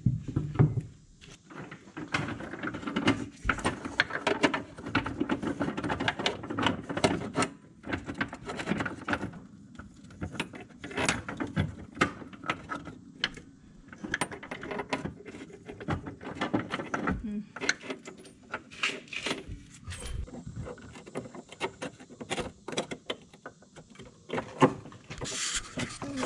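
Small metal bolt hardware clinking, rattling and scraping against a car's steel frame rail as it is fished into place with a wire for a tow-hitch mounting, with many quick irregular clicks.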